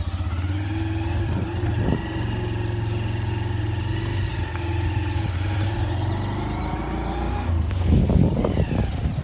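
A motor vehicle's engine running at a steady, even pitch. About eight seconds in it gives way to rough rumbling from wind and handling noise on the microphone.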